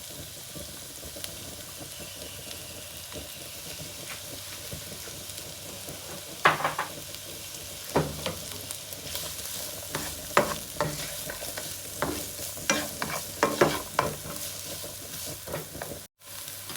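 Diced onion sizzling in melted butter in a frying pan, stirred with a utensil: a steady sizzle at first, then sharp scrapes and taps on the pan starting about six seconds in and coming more often toward the end.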